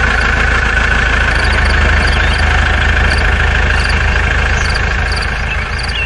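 Tractor engine idling steadily, beginning to fade near the end, with faint short high chirps repeating about twice a second.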